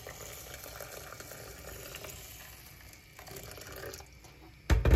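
Hot water pouring steadily over salted rice in a bowl to soak it, then a loud clunk just before the end.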